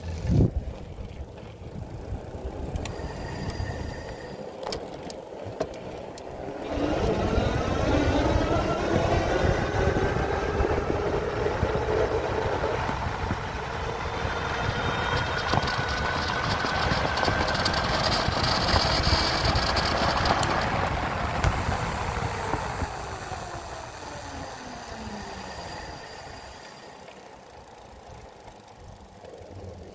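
Subaru Forester's engine running, with a whine that rises in pitch as the car speeds up about a quarter of the way in, holds, then falls away as it slows near the end. The owner calls it a bad motor noise on a car with about 300 miles on it.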